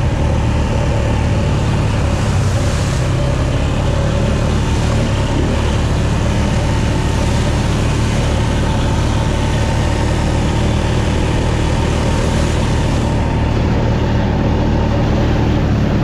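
Can-Am ATV engine running steadily, with no clear revving.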